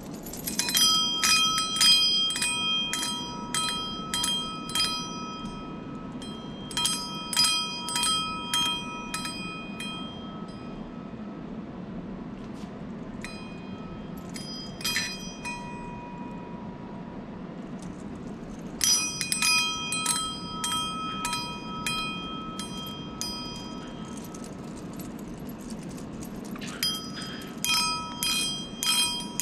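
Stainless steel bells of a BluesBirdToys 'Sweet Sounds' parrot toy shaken by hand, jingling in quick runs of strikes that leave a clear ringing tone. There are about five bursts with pauses between them; the one in the middle is only a few sparse strikes.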